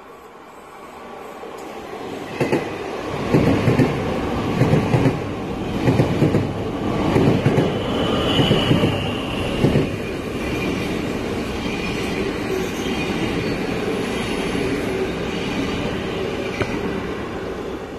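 NS double-deck electric train running past the platform. A rumble builds as it approaches, then a run of uneven wheel clacks over the rail joints for several seconds, with a brief high squeal about eight seconds in. A steady rolling rumble follows as the rest of the carriages go by, easing off near the end.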